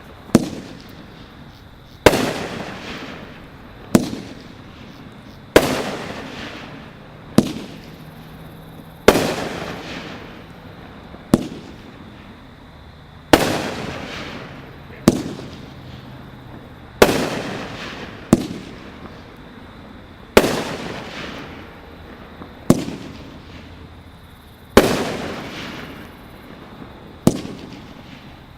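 Large fireworks going off one after another, about fifteen loud bangs spaced a second and a half to two and a half seconds apart. Each bang trails off in a rumbling echo.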